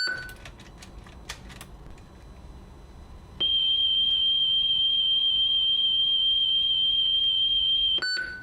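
The walkman gives a short electronic beep, then a few faint clicks of handling. About three and a half seconds in, a loud steady high test tone of about 3 kHz plays from the cassette for about four and a half seconds, with a slight wobble in pitch. It stops abruptly with another short beep.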